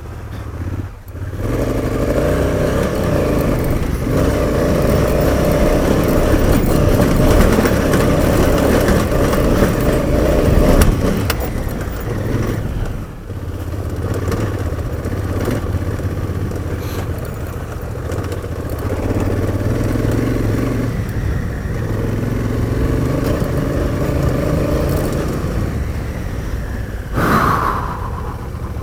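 Off-road motorcycle engine revving hard under load as the bike powers up a steep hill climb. The engine eases off briefly about twelve seconds in, then pulls on again.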